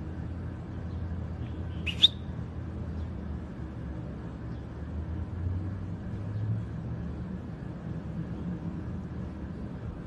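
European goldfinch giving a single short call about two seconds in, over a steady low background hum.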